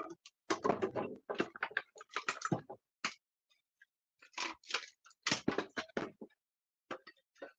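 Wooden furniture being smashed apart by hand: bursts of knocking, cracking and splintering wood, in several clusters with short silent gaps between them.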